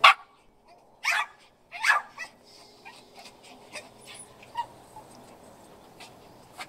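A dog barking: three loud, short barks in the first two seconds, then only faint scattered sounds.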